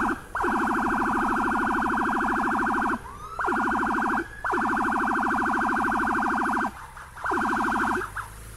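Escort vehicle's electronic siren sounding in four loud bursts of a fast-pulsing tone, with short breaks between them, clearing the way for the convoy.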